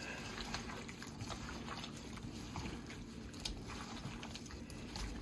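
Gloved hands squishing and turning marinated turkey necks in a stainless steel bowl: faint wet squelches with scattered soft clicks.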